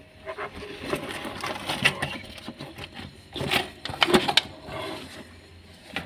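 Irregular clattering, knocking and scraping of things being handled and shifted in the gap behind a refrigerator, with the loudest knocks near the middle.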